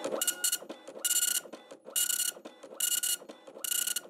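Dot-matrix printer printing a line of text, its print head buzzing across the paper in repeated short passes about once a second with brief pauses between.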